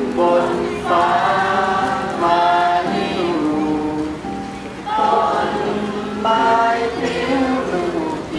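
A large group of children and adults singing a song together, choir-like, in phrases with short breaths between them.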